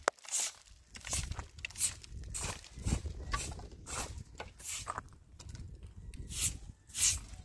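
Hand broom sweeping loose dirt off the top of a mud wall, brisk swishing strokes about two a second, unevenly spaced. There is a sharp click right at the start.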